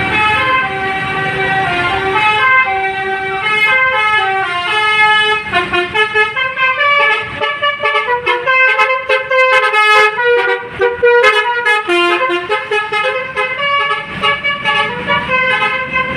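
Indonesian bus 'telolet' multi-tone horn playing a tune. It starts with a run of held stepped notes, breaks into quick choppy toots about six seconds in, and settles back into longer notes near the end.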